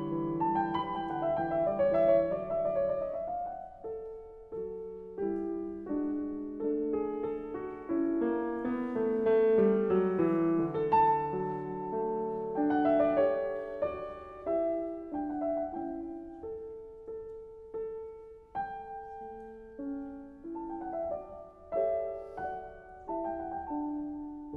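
Piano music: a slow, calm melody played over sustained chords, with no bus or road noise audible.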